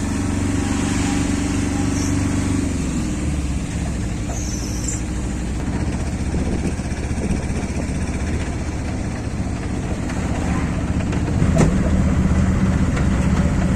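A motor engine running, its pitch dropping about three seconds in, then running on steadily with a noisy rush over it.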